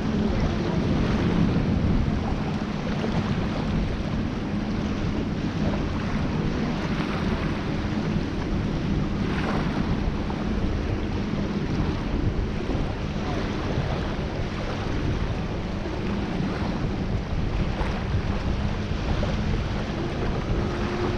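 Wind buffeting the camera microphone over small waves lapping in shallow water, with a steady low hum underneath.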